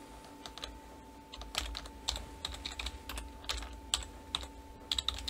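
Typing on a computer keyboard: a run of irregular key clicks, coming faster from about a second and a half in.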